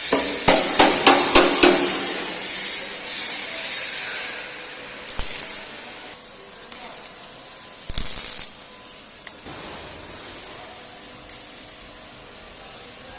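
A hammer striking metal, about six quick blows in a row over a steady high hiss, then two more single knocks further on as the hiss fades lower.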